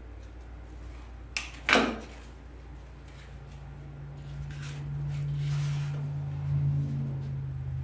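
Two sharp clicks about a second and a half in, the second the louder, as silk flower stems and wire cutters are handled, then a soft rustle of silk leaves being worked into the arrangement over a low steady hum.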